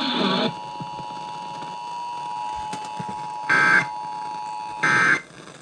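Emergency Alert System (SAME) digital data bursts: two short, shrill warbling bursts about 1.3 s apart, the end-of-message code that closes a severe thunderstorm warning. Before them a faint steady tone is heard.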